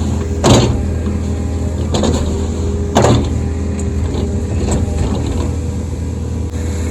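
Excavator diesel engine running steadily under work, with three sharp metal clanks about half a second, two and three seconds in, the first and last the loudest.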